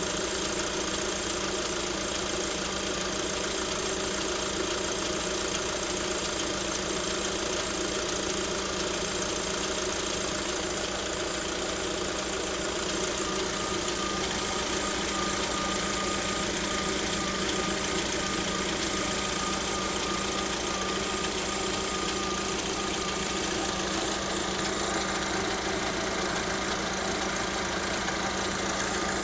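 New Lada Vesta SW's engine idling steadily, recorded to find the source of a knocking noise that the owner cannot place; a thin steady high tone joins about 13 seconds in.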